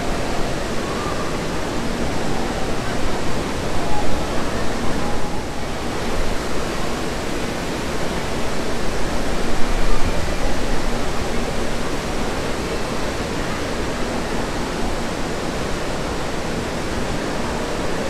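Indoor water park ambience: a steady wash of rushing, splashing water from the wave pool and fountains, with faint voices of swimmers mixed in.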